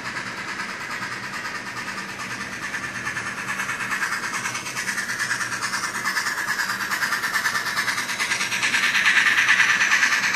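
Model 2-6-6-0 Mallet steam locomotive's Tsunami sound decoder playing rhythmic steam chuffing through its small speaker, mixed with the running noise of the model train's wheels on the track. It grows louder as the locomotive and its hopper cars pass close by.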